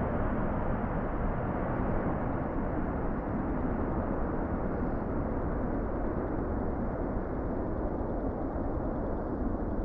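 Jet engines of a Virgin Atlantic Airbus A330 at take-off power as it climbs away: a steady, deep rumble that slowly fades and grows duller.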